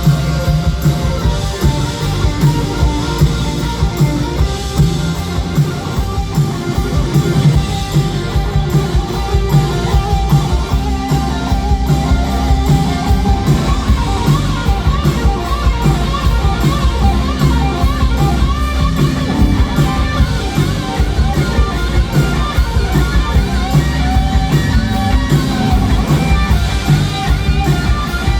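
Rock band playing an instrumental passage: fast electric guitar lines over a full drum kit and bass, with no singing.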